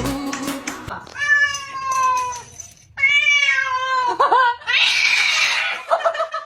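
Two long, wailing meow-like animal calls, each falling slightly in pitch, followed by a breathy hiss near the end.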